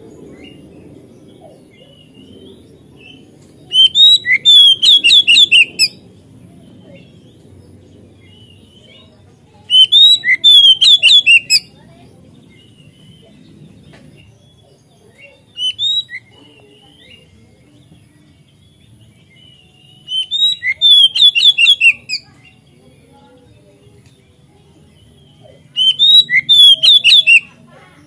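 Oriental magpie-robin singing loud, rapid phrases of sweet, sliding whistled notes. There are four bursts of about two seconds each, several seconds apart, and one short burst between them.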